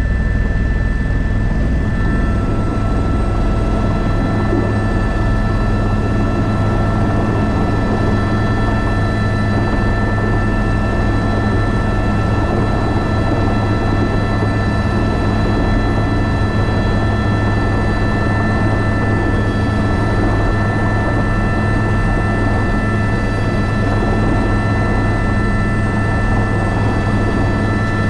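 Airbus H125 helicopter running steadily: a constant turbine whine over the low drone of the rotors.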